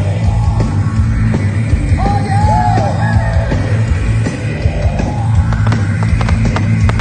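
Loud rock music with a steady beat, with a few rising-and-falling pitch glides over it.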